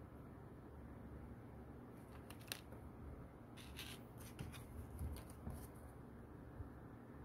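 Faint rustling and crackling of paper as the pages of a small printed leaflet are turned and a stiff paper card is handled, with a scatter of short crisp crackles from about two seconds in.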